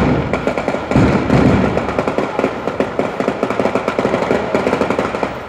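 Daytime fireworks battery (batteria) going off: a loud bang at the start and another about a second in, then a rapid, dense run of firecracker cracks, several a second.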